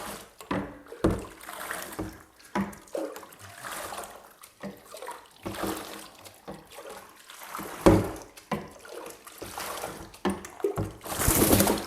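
Water sloshing, trickling and splashing in irregular bursts as a hen is washed in a tub of water. A louder, steady rush starts near the end.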